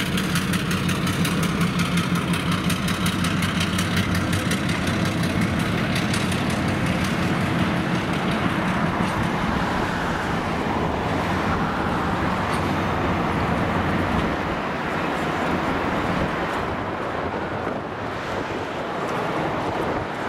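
V/Line Y class diesel shunter's engine running steadily as the locomotive moves slowly along the yard tracks. The sound fades a little in the last few seconds as it draws away.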